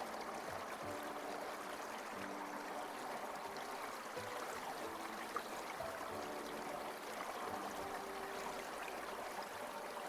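A stream's water flowing and trickling steadily, with soft held music notes faintly beneath it.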